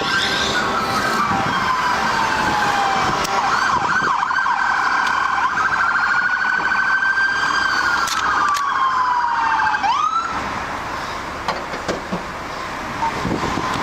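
Emergency vehicle siren wailing, its pitch sweeping down and back up, with a fast warble partway through. It cuts off suddenly about ten seconds in.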